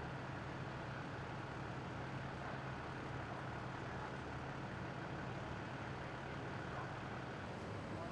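A vehicle engine idling, a steady low hum that doesn't change, over general street ambience.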